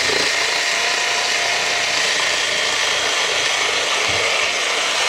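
Blue Ridge rechargeable rotary cutter's electric motor running steadily as its spinning blade cuts through thick corrugated cardboard. The cardboard is close to the cutter's quarter-inch limit, so it has to be pushed firmly through, but it does not stall.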